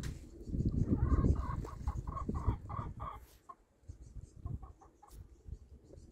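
Chickens clucking: a run of short, quickly repeated calls lasting about two seconds, then a few fainter ones near the end, over a low rumble.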